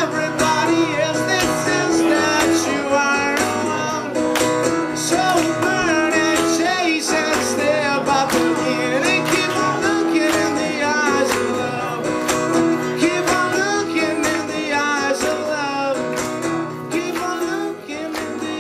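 Acoustic guitar strummed steadily, with a man's voice singing a wavering melody over it, the playing softening a little near the end.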